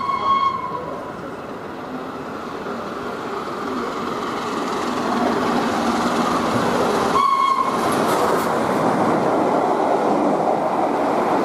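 Peppercorn A1 class steam locomotive 'Tornado' running through at speed: its whistle ends just after the start and sounds again briefly about seven seconds in, while the sound of the locomotive working hard grows steadily louder as it approaches and passes.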